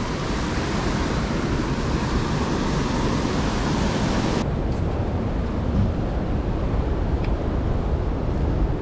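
Surf washing on a rocky shore under steady wind rumble on a body-worn camera's microphone. About four and a half seconds in, the hiss drops away abruptly and mostly the low wind rumble remains.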